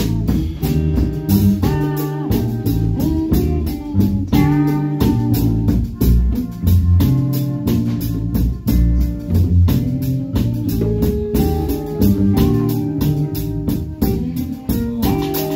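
Instrumental band music: guitar and organ-like notes over a drum kit keeping a steady beat.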